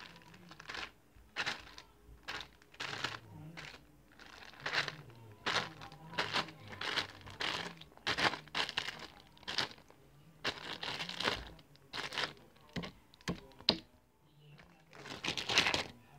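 Plastic Ziploc bag crinkling in many short, irregular bursts as slime is handled in it, with a louder stretch near the end.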